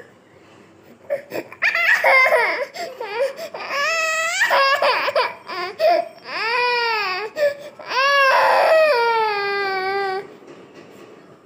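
Toddler crying: a run of loud wails that rise and fall in pitch, starting about a second and a half in and ending with one long wail that slides down.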